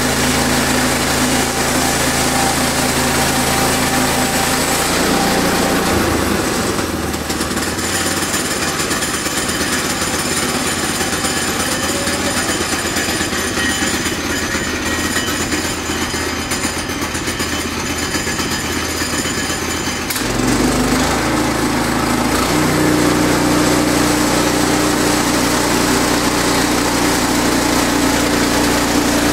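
Sawmill engine running steadily. Its note changes about six seconds in, becomes rougher and noisier, and settles back to a steady hum about twenty seconds in.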